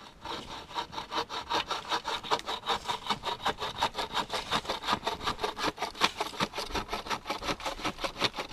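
Homemade hickory-framed handsaw cutting wood in rapid, even back-and-forth strokes, about six a second. The saw's blade has not yet been tightened.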